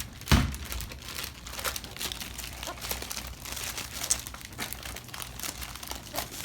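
Packaging crinkling and rustling as it is handled and pulled off, a steady run of irregular crackles with one louder knock just after the start.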